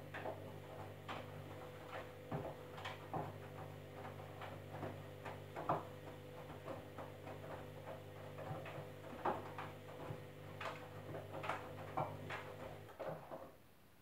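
Candy front-loading washing machine drum turning during the wash, its motor humming steadily while wet laundry tumbles inside with irregular soft knocks and splashes. The motor and tumbling stop abruptly near the end as the drum pauses.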